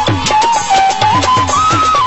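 Punjabi folk music with no singing: one held melody line stepping up and down in pitch over a fast drum rhythm of several strokes a second.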